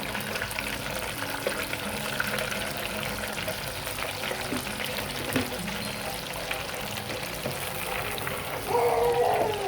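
Egg rolls deep-frying in hot oil: a steady sizzle with fine crackling.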